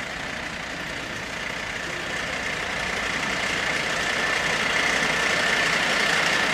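Fire engine idling: a steady engine hum with a thin, steady high whine, growing gradually louder.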